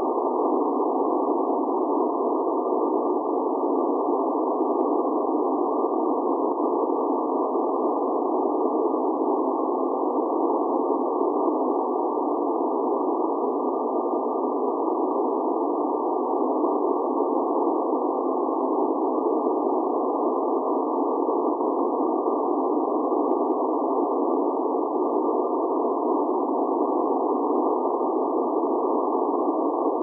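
Wind sound effect: a steady, even rush of noise with no gusts or lulls.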